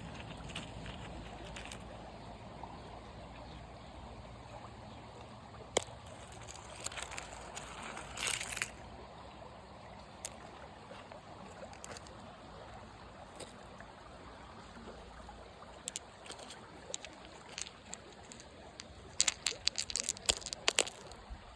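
Water trickling and sloshing steadily, with scattered sharp splashes and clicks, clustered near the end.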